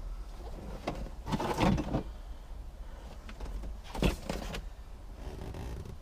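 Car dashboard parts being handled and worked loose: scraping and rustling about a second in, then a sharp knock about four seconds in.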